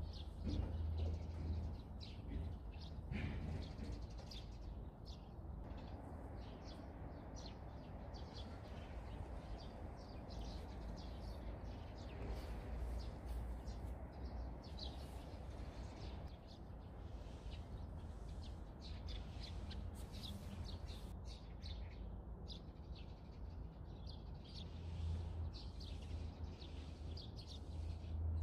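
Small birds chirping over and over, many short chirps throughout, over a steady low rumble.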